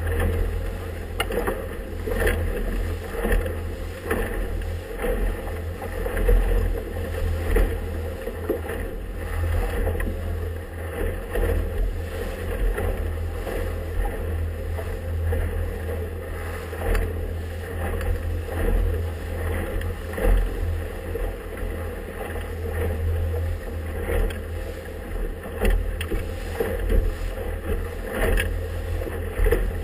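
Wind buffeting the microphone as a deep, uneven rumble over the rush of water, as a boat runs through choppy waves with frequent irregular slaps and splashes against the hull.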